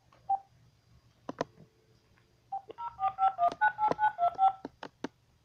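Phone keypad touch tones as a number is dialed: a quick run of about ten short two-note beeps in the second half, with a few taps on the phone around them.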